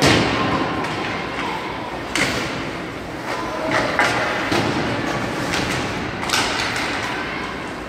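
Puck, stick and board impacts of a youth ice hockey game: a loud knock at the start, then several more sharp knocks a second or two apart, over steady rink and crowd noise.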